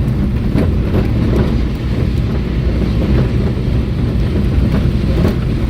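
Vehicle driving along a road: steady engine and road noise with wind buffeting the microphone and a few faint knocks from bumps.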